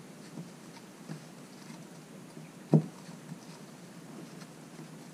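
Handling noise from a rubber impeller being twisted and pushed into a Mercruiser raw water pump housing: faint rubbing and a few small clicks, with one sharp knock nearly three seconds in.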